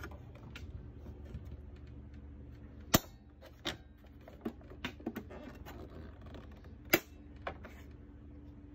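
Clicks and snaps from handling the Bell & Howell 2580 16mm projector's reel arm and its release catch. Two sharp snaps stand out, about three seconds in and again about four seconds later, with lighter clicks in between, over a steady low hum.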